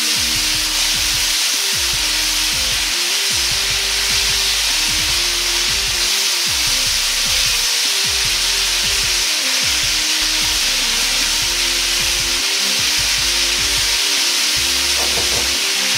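Pork and bamboo shoots sizzling steadily in hot oil in a wok as they are stir-fried. Soft background music with a simple stepping melody plays over it.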